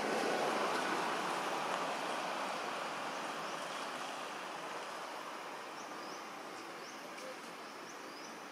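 Forest ambience: a steady rushing hiss that slowly fades, with a run of short, high, rising bird chirps from about three seconds in.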